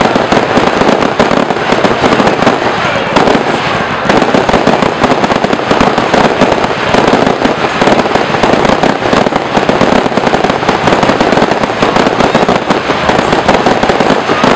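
Fireworks display: a loud, dense barrage of many firework bursts in quick succession, running together without a break.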